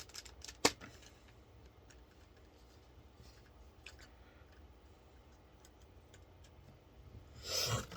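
Small hard parts being handled: one sharp click less than a second in, then faint scattered ticks, and a short rustle near the end, over a low steady hum.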